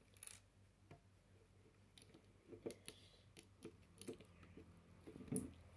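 Faint, scattered clicks of plastic LEGO bricks being handled and pressed onto the model.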